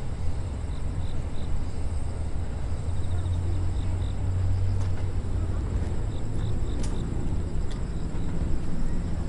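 Outdoor background noise: a steady low rumble with a few faint, short high chirps and a brief click about seven seconds in.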